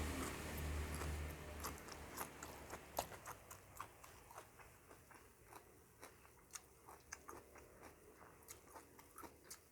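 Close-up chewing and crunching of crisp raw vegetables, with many short wet crunches at an uneven pace. A low hum fades out over the first couple of seconds.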